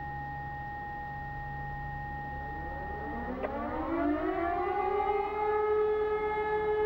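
A steady high tone gives way about halfway through to an E57 electromechanical siren spinning up: a rising wail that climbs and then settles into a steady, louder tone. This is the start of the one-minute continuous all-clear (Entwarnung) signal.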